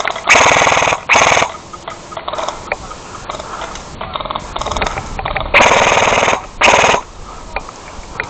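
Airsoft rifle firing full-auto: four short bursts of rapid shots, two close together near the start and two more about five and a half seconds in.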